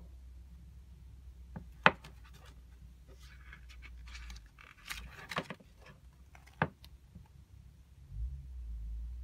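Pages of a small paperback artbook being turned by hand: a stretch of paper rustling as the pages are fanned through, with three sharp page snaps spread across it.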